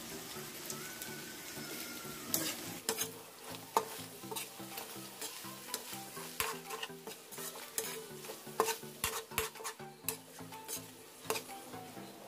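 Metal spatula scraping and stirring diced luncheon meat and tuna around a wok, with many sharp clicks against the pan over a light sizzle of frying.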